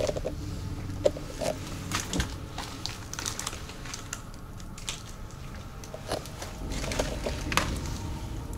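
Footsteps crunching and cracking over rubble and broken debris, in irregular steps, over a low steady rumble.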